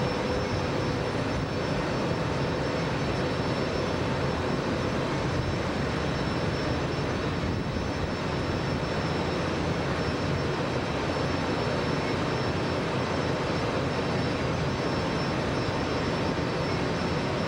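Steady, unchanging drone of a boat engine running under way, mixed with an even rushing noise.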